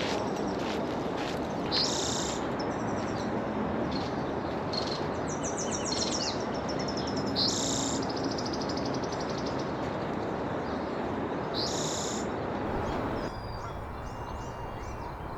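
A chorus of several wild songbirds singing and calling: repeated high chirps and a rapid trill, over a steady background rush. The rush drops about 13 seconds in.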